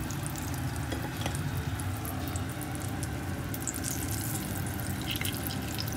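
Battered eggplant slices (beguni) deep-frying in hot oil: a steady sizzle with scattered fine crackles and a few light clicks.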